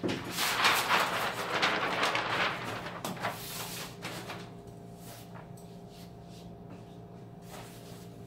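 A large sheet of paper rustling and crinkling loudly as it is spread and pressed flat over a tabletop. The rustle fades after about four seconds to a few light touches, over a low steady hum.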